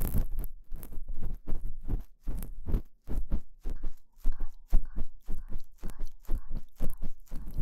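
Ear pick scraping inside the ear of a KU100 binaural dummy head, close up, in quick irregular strokes several times a second.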